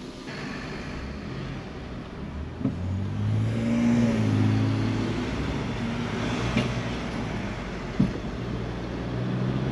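Engine of a car towing a caravan, heard from inside the car: it runs low, then pulls away and picks up speed about three seconds in, running steadily after that. A single short knock about eight seconds in.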